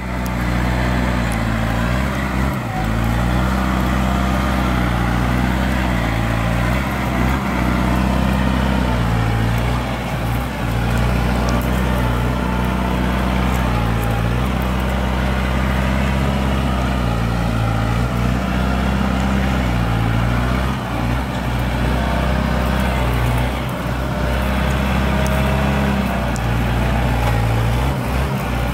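Kubota M7040 tractor's four-cylinder diesel engine running steadily under load as it pulls a cultivator through tilled soil, its pitch dipping and recovering slightly now and then.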